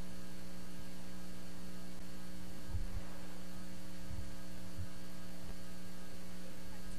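Steady electrical hum on the audio line: one buzzy tone with a ladder of fainter higher tones, unchanging throughout.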